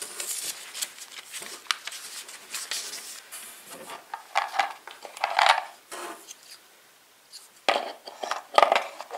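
Paper leaflets rustling, then hard plastic pressure-washer accessories knocking and scraping as they are shifted inside a cardboard box, with a short lull before a loud cluster of knocks near the end.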